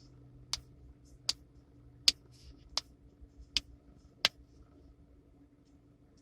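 Finger knuckles being cracked one after another: six sharp pops about three-quarters of a second apart, stopping a little past halfway.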